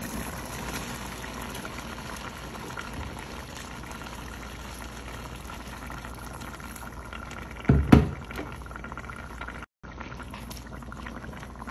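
Liquid bubbling and pouring in a cooking pot as rice goes into a simmering chicken stew and water is poured over it from a kettle, a steady watery splashing. A loud knock sounds about eight seconds in, and the sound cuts out briefly near ten seconds.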